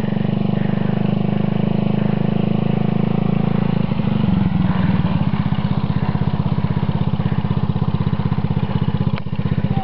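A 90cc mini ATV's small engine running at low, steady throttle. About four seconds in its sound turns into a clear, fast, even putter as the quad comes up close.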